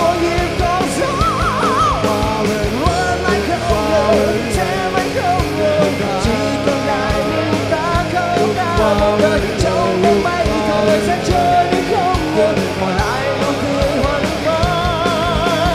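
Rock band playing live: drums, guitars and a sung melody, ending on a long wavering held note.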